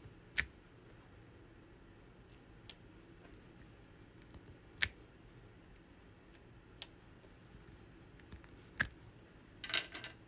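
Diamond-painting drill pen tapping round resin drills onto the sticky canvas: single sharp clicks a few seconds apart, then a quick cluster of clicks near the end.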